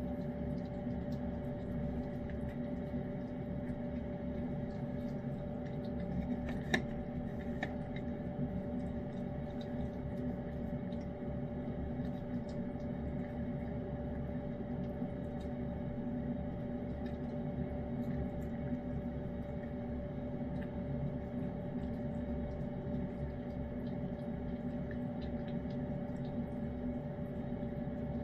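A cat eating salmon pâté wet food, with small wet clicks of licking and chewing scattered throughout. A steady mechanical hum runs underneath, and there is one sharper click about seven seconds in.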